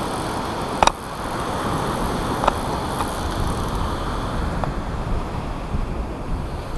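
Surf washing on the beach with wind buffeting the microphone, a steady rush, broken by a few sharp clicks, the loudest about a second in, typical of a camera housing that was not closed properly.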